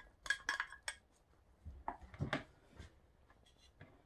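Plastic spatula scraping chopped onions out of a glass measuring cup into a plastic bowl: two clusters of short scrapes and taps, then faint clicks near the end.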